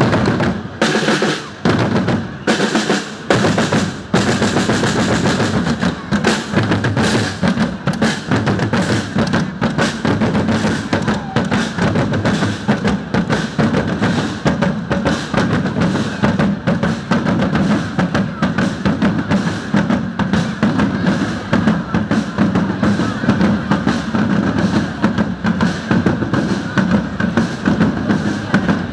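A marching street drum band playing snare drums and larger bass drums in a fast, steady beat. It comes in stop-start hits with short gaps over the first few seconds, then settles into unbroken drumming.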